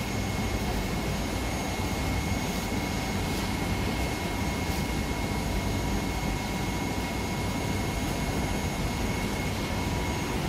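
A steady machine drone with a constant high whine, unchanging throughout.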